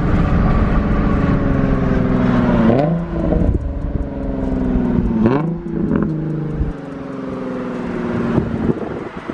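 Nissan 350Z's V6 running through a loud Tomei exhaust. The engine note slowly sinks, is revved up quickly twice, about 3 and 5 seconds in, and then drops back quieter. No whistle stands out from the turbo whistle on the tailpipe tip: the exhaust drowns it out.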